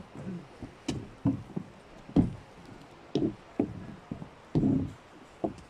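Footsteps on a wooden boardwalk: irregular hollow knocks of shoes on the planks, about one to two a second.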